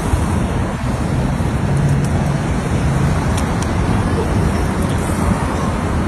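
Busy city street traffic: a steady rumble of cars and trucks on the avenue, with a low engine drone standing out for a moment about two seconds in.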